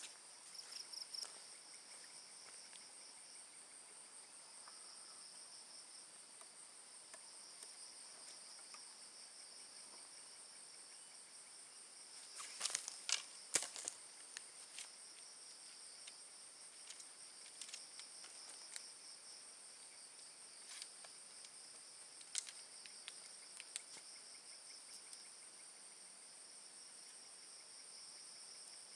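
Night insect chorus: a steady high-pitched trilling in two continuous pitches. A few scattered clicks and rustles break it, with a louder cluster about halfway through.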